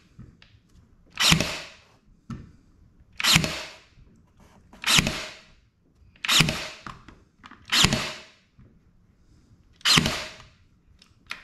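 Cordless pin nailer firing pin nails into wood, six sharp shots about every one and a half to two seconds, each with a short fading whir after it.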